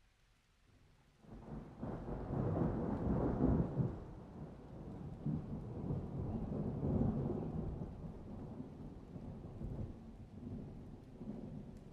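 Rolling thunder: a low rumble that builds suddenly about a second in, is loudest soon after, and slowly dies away without stopping.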